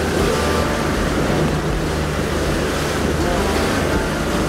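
Motorboat running at speed through choppy sea: a steady engine drone under the rush of water off the hull and wake, with wind buffeting the microphone.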